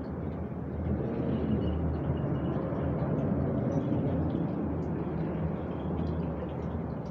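Steady low rumble of background noise, with faint short high chirps scattered through it.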